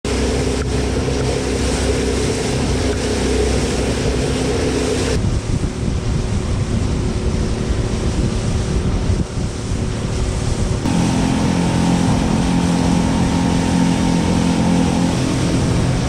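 Outboard motor of a small aluminium boat running under way, with wind buffeting the microphone and water rushing past the hull. The engine note changes abruptly about five and eleven seconds in.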